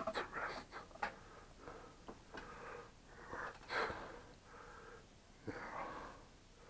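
Close, irregular rustling, clicking and breathy handling noises as a small quadcopter frame with its motor wires is picked up and moved about, over a faint steady hum.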